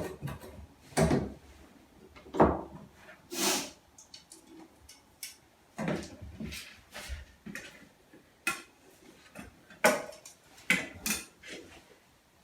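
Irregular knocks and clatters of tools and wood being handled, picked up and set down, with one short scrape about three and a half seconds in.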